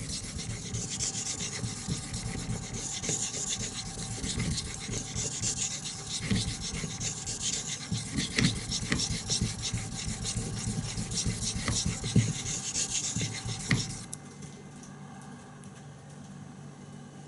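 VG10 steel knife blade stroked back and forth on a water whetstone: a steady run of scraping strokes that stops about 14 seconds in. The strokes work the belly of the edge to raise a burr.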